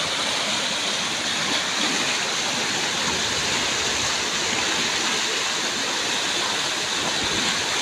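Fast floodwater rushing and churning across a submerged road: a steady, even rush of water.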